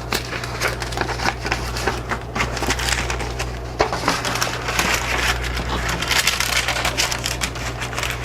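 Stiff old paper packaging crackling and rustling as it is opened and handled, with a dense run of irregular crinkles and clicks: a packet of vintage photographic postcard paper.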